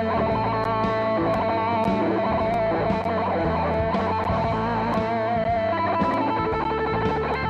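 Electric guitar playing a slow two-note blues solo, alternating between two held notes with vibrato, over a backing of a bass line and a steady drum beat.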